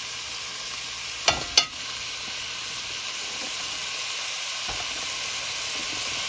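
Salmon steaks, onions and peppers sizzling steadily in hot oil in a metal pot. About a second and a half in, a metal spoon strikes the pot twice with sharp clanks, followed by a softer knock a few seconds later.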